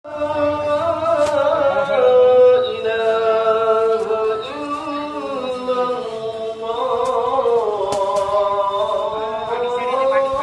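Islamic call to prayer (adhan) chanted by a single muezzin, holding long notes that bend slowly up and down, with a breath break every few seconds.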